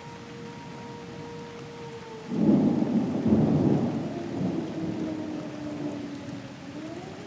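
Air raid siren holding a steady tone over steady rain; about two seconds in a loud thunderclap breaks in and rumbles for several seconds, while the siren's pitch drops lower and then rises back up near the end.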